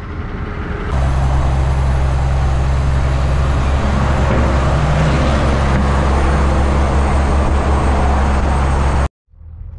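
Heavy truck's diesel engine running at a steady speed, a constant low drone under a wash of engine and road noise. It comes in abruptly about a second in and cuts off abruptly near the end.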